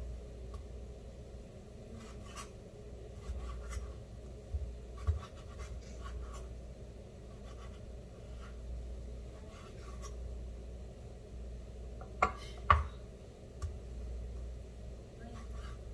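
Kitchen knife cutting raw fish fillet into bite-size cubes on a bamboo cutting board: soft, scattered slicing and scraping with light taps of the blade on the wood. Two sharper knocks come close together about three-quarters of the way through.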